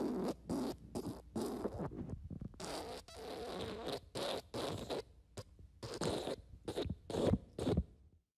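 Fart sound effect: a rapid string of about twenty short, raspy farts with one longer drawn-out fart about three seconds in, cutting off near the end.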